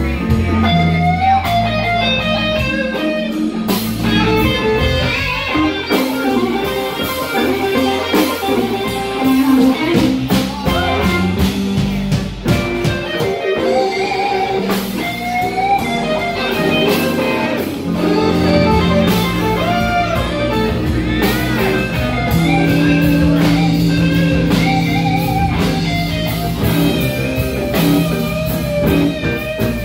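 Live blues band playing an instrumental passage: electric guitar out front with bending melodic lines, over electric bass and a drum kit keeping a steady beat.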